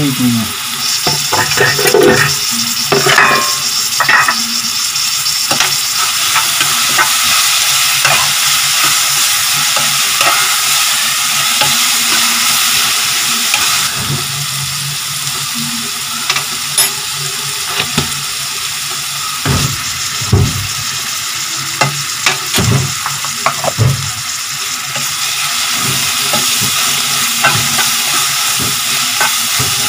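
Chopped onions, broccoli and curry leaves sizzling steadily in oil in a frying pan, stirred with a steel spoon that scrapes and clatters against the pan now and then, most about two to four seconds in and again around twenty seconds in.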